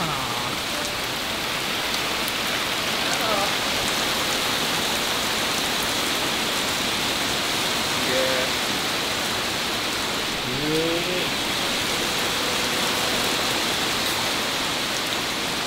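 Heavy downpour: a steady, dense hiss of rain falling hard, with no letting up.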